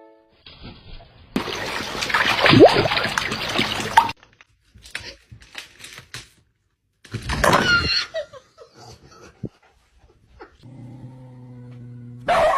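A dog's vocal sounds in short bursts, after a loud rushing noise lasting a couple of seconds near the start; a steady held tone comes near the end.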